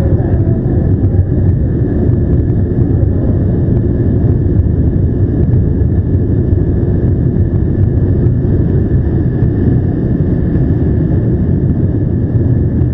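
Steady, loud low rumble of engines and machinery, unchanging throughout, with a faint constant high hum above it.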